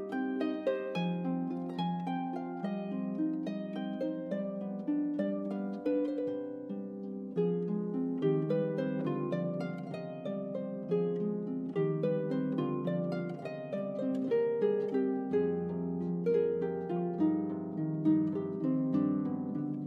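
Solo concert pedal harp playing a continuous flow of plucked notes over a moving bass line, with deeper bass notes joining about fifteen seconds in.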